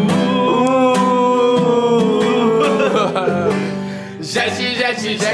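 A man sings, holding a long note over a strummed nylon-string classical guitar. Near the end he breaks into laughter.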